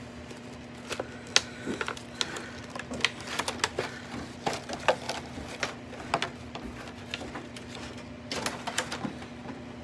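Irregular light clicks and crinkles of Pokémon card packaging and cards being handled and opened, with a quick cluster of clicks near the end, over a faint steady low hum.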